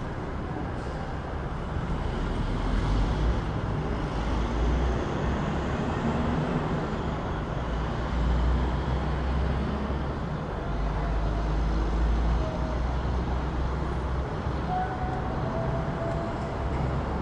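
City street traffic: a continuous low rumble of passing cars and heavier vehicles, swelling as vehicles go by several times, with a few faint brief squeal-like tones near the end.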